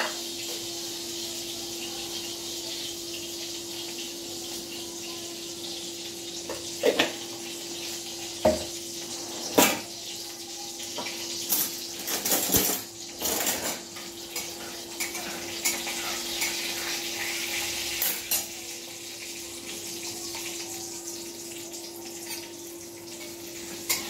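Hot oil sizzling steadily in a kadhai with mustard seeds and curry leaves just added, over a steady low hum, broken by scattered sharp clicks and clinks of a jar and spatula against the pan, with a cluster of them midway.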